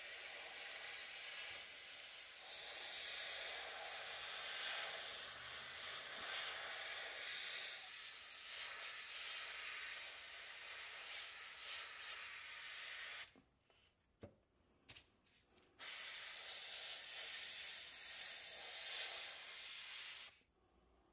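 Gravity-feed airbrush spraying paint: a steady high hiss of air and paint that breaks off about 13 seconds in, starts again a couple of seconds later, and stops shortly before the end.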